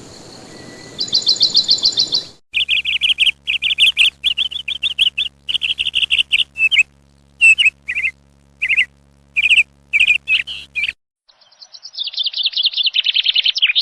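Great kiskadee calling: a fast trill of high notes, then about a second in a long run of loud, sharp repeated notes with short gaps, and near the end another fast trill. The sound cuts in and out abruptly between these parts.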